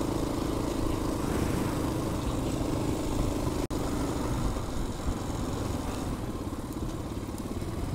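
KTM 500 EXC-F single-cylinder four-stroke dirt-bike engine running steadily on the move, with a momentary dropout about three and a half seconds in.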